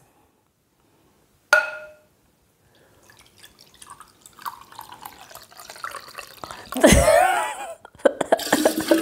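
A glass clink with a short ring about a second and a half in, then liquid pouring from a glass pitcher into a glass measuring cup, the pour growing louder over several seconds and loudest near the end.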